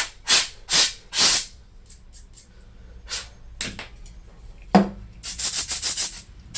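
Short rubbing strokes of a cloth or tissue wiping laptop cooling parts clean: three quick wipes in the first second and a half, two more around three seconds in, a sharp knock near five seconds, then a fast run of wipes near the end.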